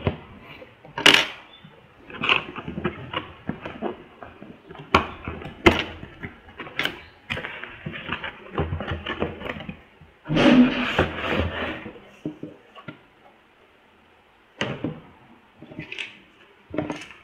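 A cardboard router box being opened and handled by hand on a wooden table: irregular taps, knocks and scrapes of cardboard, with a longer scraping rustle about ten seconds in as the packing is slid about.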